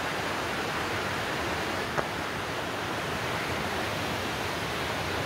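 Steady, even rushing noise with no distinct events, and a faint click about two seconds in.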